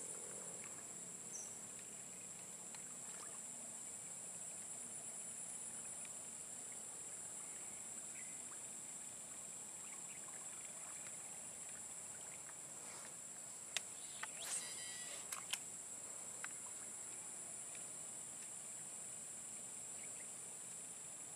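Steady high-pitched drone of an insect chorus, unchanging throughout, with a short cluster of sharp clicks about two-thirds of the way through.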